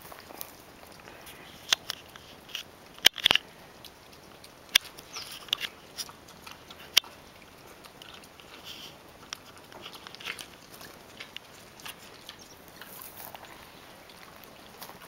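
Pot-bellied pig eating from a plastic bowl: chewing, with irregular sharp clicks and knocks as its snout bumps and shoves the bowl, the loudest cluster about three seconds in.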